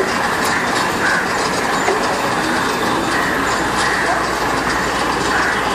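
Heavy diesel construction machinery running, a backhoe loader moving in front of a working crane: a steady engine din with scattered clicks and clanks.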